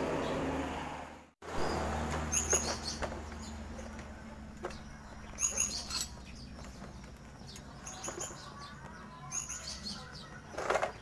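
Small birds chirping in short, high calls every second or two over a steady low hum, with a few faint knocks. At the start there is a brief rustle of handling that cuts off about a second in.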